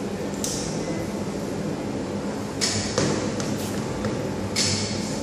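High-voltage test set humming steadily while a wet insulator string under test gives off a few short hissing crackles of corona discharge, one of them with a sharp snap about three seconds in.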